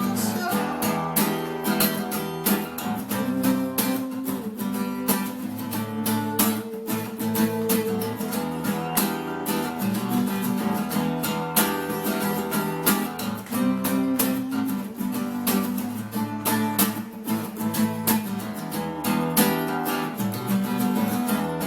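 Music track of rhythmically strummed acoustic guitar, played steadily throughout.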